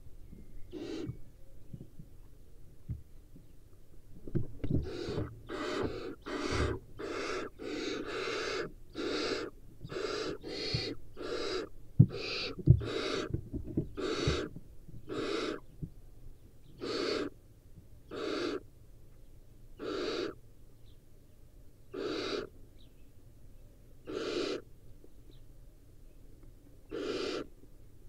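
Young barn owls giving a long series of raspy hissing calls, the begging 'snore' of nestlings, each about half a second long: several in quick succession, then spaced a couple of seconds apart. A few short knocks midway as the birds scuffle on the nest floor.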